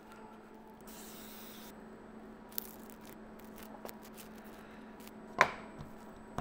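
Quiet rubbing and pressing of adhesive-backed sandpaper being smoothed onto a 3D-printed sanding block, with a short hiss about a second in and one sharp knock near the end.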